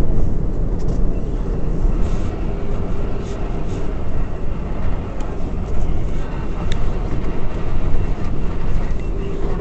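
Inside an R188 subway car of the 7 train running along the track: a steady low rumble of wheels on rails, with a few faint clicks.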